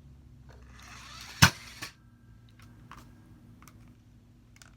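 Toy shooter mounted on a remote control car firing: one sharp, loud snap about a second and a half in, after a brief rising whir. A few faint clicks follow.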